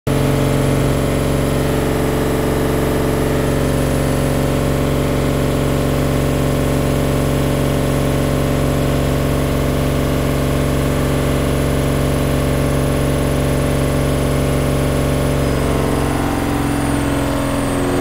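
Hoover 10 kg front-loading washing machine running a high-speed 1500 rpm spin with an unbalanced load, a loud steady whine and drone that starts to fall in pitch near the end as the drum slows. The owner takes the unbalanced spin as a sign that the shock absorbers need replacing.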